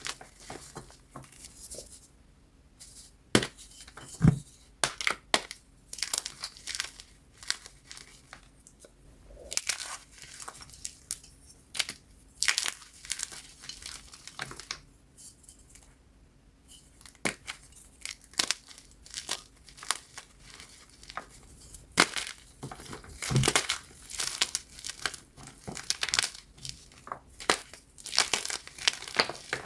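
Blocks of BSN Plain Jane gym chalk (magnesium carbonate) being crushed. The chalk gives crisp, crunchy cracks that come irregularly, several a second, with short pauses in between.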